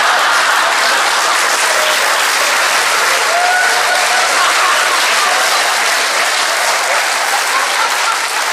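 Live audience applauding, a steady spread of clapping that eases off slightly near the end.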